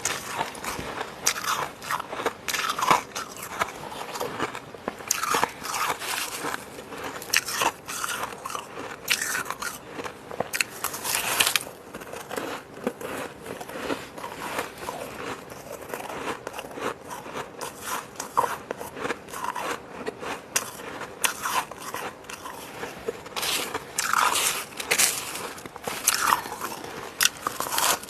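Someone biting and chewing fluffy freezer frost: a dense, irregular run of crisp crunches.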